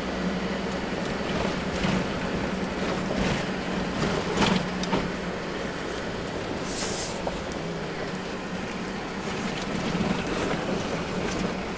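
Inside the cabin of a Toyota LandCruiser 60 Series driving on a rough dirt track: a steady engine drone under road noise, with a few knocks and rattles over bumps.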